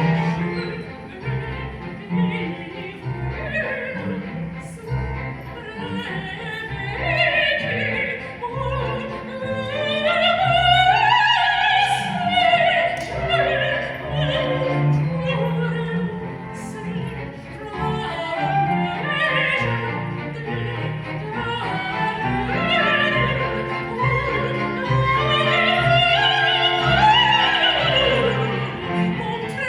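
Classical music performed live: an operatic voice singing with wavering, sustained notes over orchestral accompaniment.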